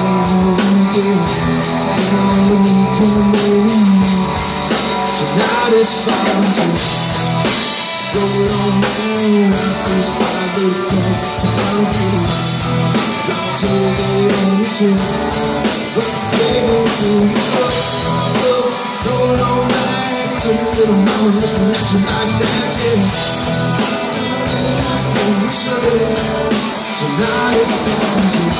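Live rock band playing: drum kit, electric and acoustic guitars, with a male lead vocal.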